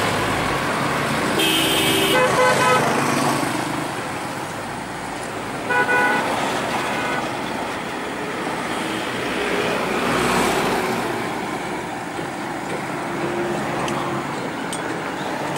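Road traffic noise with vehicle horns honking: one horn sounds about a second and a half in, another about six seconds in.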